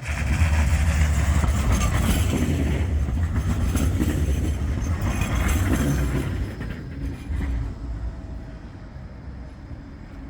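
Bombardier Flexity 2 tram passing close by, with a low rumble and wide noise that start suddenly, stay loud for about six seconds, then fade away.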